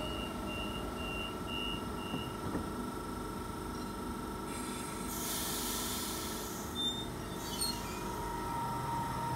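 Sydney Trains M-set (Millennium) electric train at a platform: a run of short, evenly spaced door-warning beeps, then the doors shut with a burst of air hiss about five seconds in. A steady electric hum runs underneath, and a motor whine grows near the end as the train starts to pull away.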